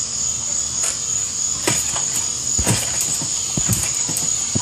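A person bouncing on a trampoline mat: several dull thuds at uneven intervals, starting after a second or so, the heaviest a little past halfway. A steady high insect drone runs underneath throughout.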